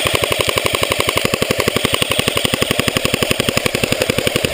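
Airsoft electric gun firing full-auto in one long unbroken burst of rapid, evenly spaced shots.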